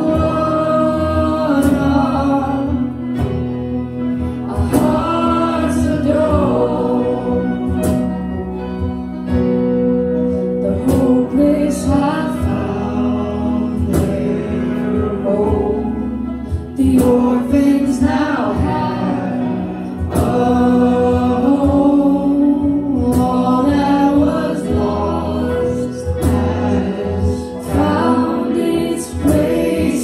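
Live worship band performing a slow song: several voices singing together over acoustic guitar and keyboard, with steady held low notes underneath.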